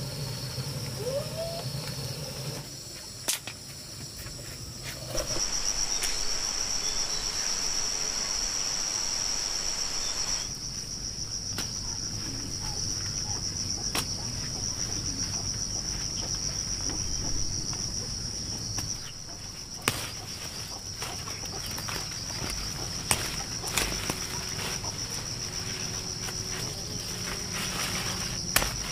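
Insects chirring, a steady high pulsing buzz that grows louder about five seconds in. A rushing hiss lasts about five seconds near the start, and a few sharp knocks come through.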